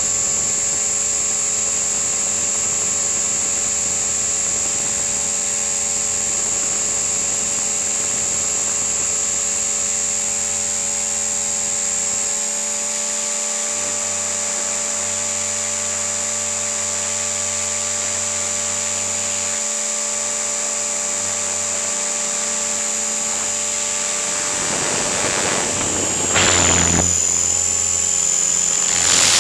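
Align T-REX 500 electric RC helicopter in flight, heard from a camera on its nose: a steady high-pitched whine from the motor and drivetrain under the rotor noise. Near the end, as it comes down low over the grass, a rush of noise joins in, the sound gets louder and the whine wavers.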